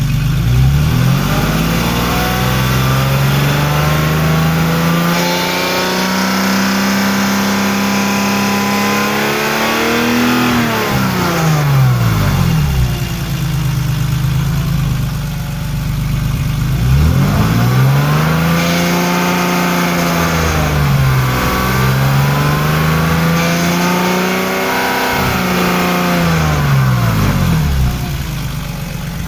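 Car engine with its drive belts removed, revved up from idle and held at high revs, then let fall back; this happens three times, the last with a short dip partway. At the high revs a grinding, rattling noise comes in, which the owner hears between 3500 and 4000 rpm and which goes away if the revs go much higher.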